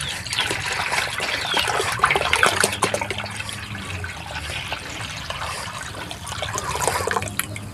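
Water pouring in a steady stream from a bottle into a basin of dissolved brown sugar, splashing and frothing into foam on the surface.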